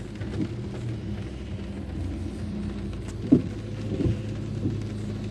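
Car engine hum and tyre noise on a wet road, heard from inside the cabin while driving, with a sharp thump about three seconds in and a smaller one shortly after.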